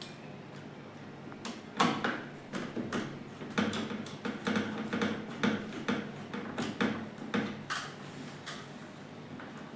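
Irregular knocks, clicks and rattles from about a second and a half in until near the end, over a steady low hum. The first knock, about two seconds in, is the loudest.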